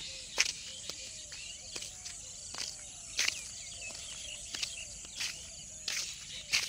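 Outdoor rural ambience with insects and small birds chirping, broken by sharp brief clicks and rustles about once or twice a second.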